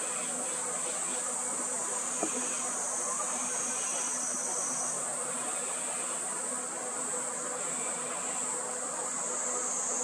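A steady, high-pitched chorus of cicadas buzzing, with a single brief tick about two seconds in.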